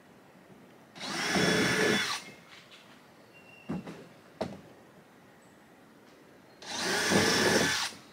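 Power drill run in two bursts of about a second each, driving a fastener into the PVC canopy frame, with two light knocks in between.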